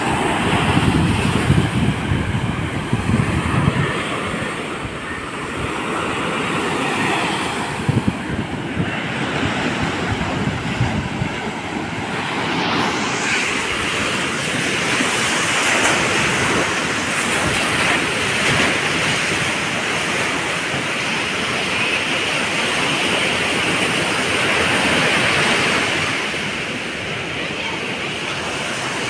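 Ocean waves breaking and washing up on a sandy beach in a continuous rush of surf, with wind rumbling on the microphone. Loudest in the first few seconds.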